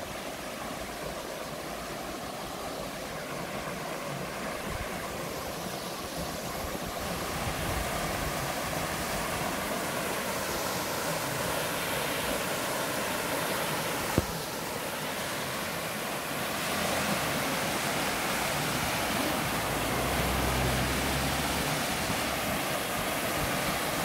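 Small mountain-stream cascade splashing over rock ledges into a shallow pool: a steady rush of water that grows louder about a third of the way in. A single sharp click sounds a little past halfway.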